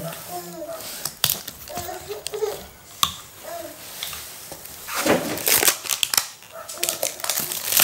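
Plastic being handled: the screw cap of a large plastic drink bottle twisted off with small clicks, then thin disposable plastic cups crinkling and tapping as they are set on a table, with the loudest crinkling about five seconds in.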